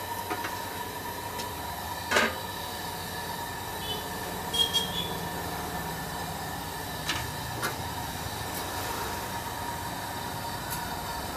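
Hot oil sizzling steadily in a wide wok as a batch of bonda fritters deep-fries, with a few sharp pops and clicks.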